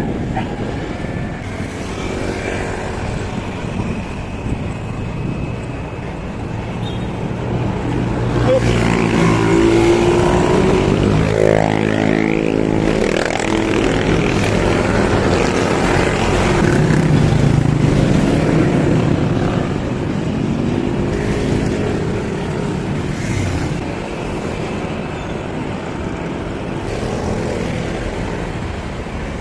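Road traffic heard from a moving bicycle: a motor vehicle's engine passes close by, loudest from about eight to fourteen seconds in, over steady wind and road noise.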